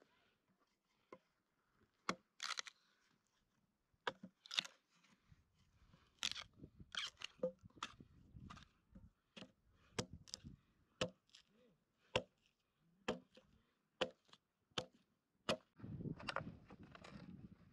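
A wooden tool handle being worked by hand against a log: short scraping strokes, then a run of sharp wooden knocks, about two a second, that stops about two seconds before the end. Near the end, a low scuffing rustle.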